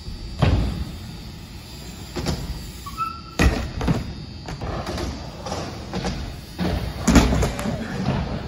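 BMX bikes and riders crashing onto a ramp: a series of heavy thuds with the clatter of bike frames hitting the surface, several times.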